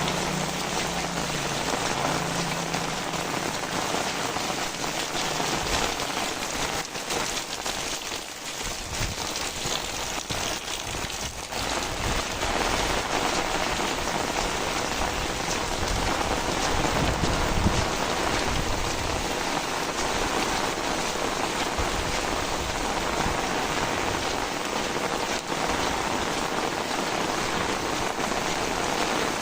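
Heavy rain falling steadily, a dense even patter, easing slightly about a third of the way in. A low hum sits under it for the first few seconds.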